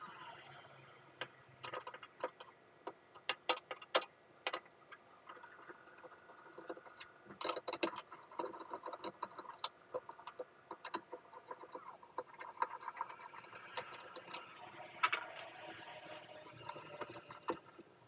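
Old plastic pipe exhaust fan being worked loose and pulled off the wall by hand, with a screwdriver to help: irregular clicks and knocks of the plastic housing and grille, with some scraping as it shifts in its mounting.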